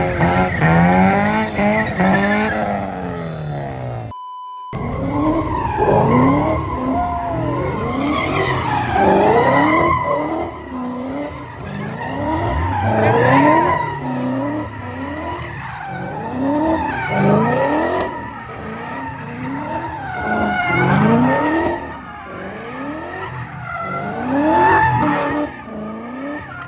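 A car engine revving hard over and over in quick rising sweeps while its tyres skid and squeal, as in a burnout or donut. There is a short break in the sound about four seconds in.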